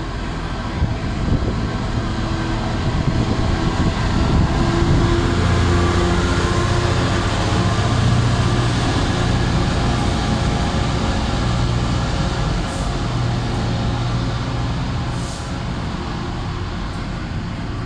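Freightliner Class 66 diesel locomotive's two-stroke EMD engine running as it passes close by at low speed, hauling a train of tank wagons. The engine is loudest a few seconds in as the locomotive goes past, then the rumble of the tank wagons' wheels on the rails carries on.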